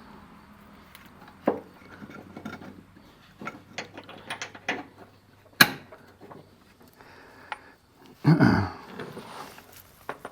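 Sharpened mower blade and its mounting hardware being refitted to the mower deck spindle: scattered metal clicks and clinks, a sharp click a little past halfway and a louder clank about eight seconds in.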